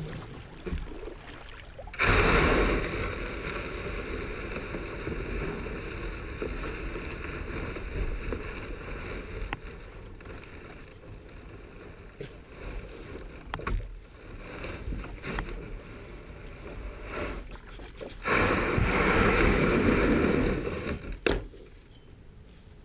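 A plastic kayak being landed: water sloshing around the hull and the hull scraping over the sandy, gravelly bottom as it runs aground, with a few sharp knocks. Near the end comes a louder scraping of about three seconds as the kayak is dragged up onto the gravel.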